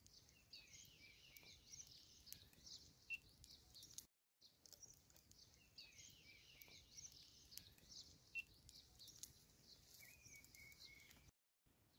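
Faint birdsong: small birds chirping with short whistled glides, over a quiet rural background. The sound drops out completely twice for a moment.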